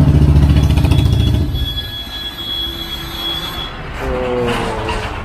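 A motor vehicle engine running close by with a fast, low pulsing, which drops away about a second and a half in. A thin, steady, high whine lingers for about two seconds after, and a voice starts near the end.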